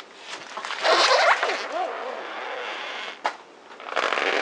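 A car tyre rolls onto a rubber balloon printed like a soccer ball and bursts it: a loud sudden crack about a second in, followed by squeaky rubber sounds and a steady rolling noise. A sharp click comes just after three seconds, and noise rises again near the end.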